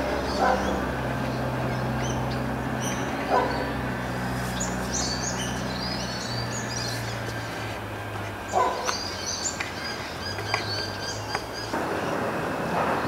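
Birds chirping in two spells, with a few short sharp sounds about half a second in, near three and a half seconds and near eight and a half seconds. Under them runs a low steady hum from an Adelaide Metro 4000 series electric railcar approaching from a distance.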